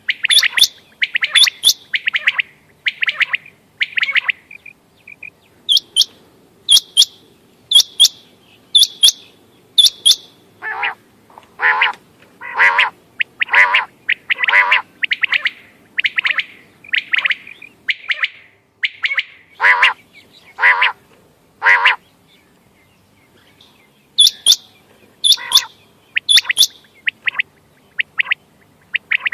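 Quail calling in a rapid series of short repeated notes. Sharp, high notes come in some stretches, a run of lower, fuller notes fills the middle, and after a short pause the high notes return near the end.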